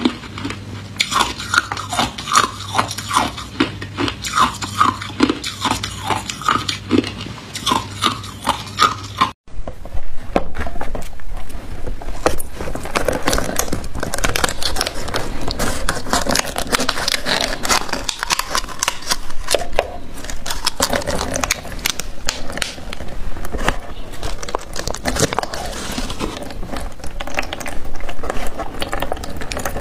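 Hard ice cubes being bitten and crunched, about two crunches a second. About nine seconds in, after a brief break, a dense run of crackling and scraping follows as the plastic of a frozen water bottle is snipped with scissors and peeled off the block of ice.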